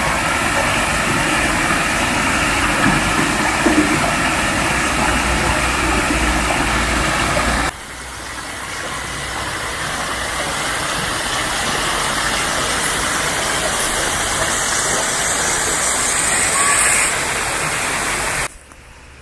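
Small woodland stream splashing and tumbling over mossy rocks in a steady rush. About eight seconds in it cuts abruptly to a quieter rushing noise that slowly swells, then drops off sharply just before the end.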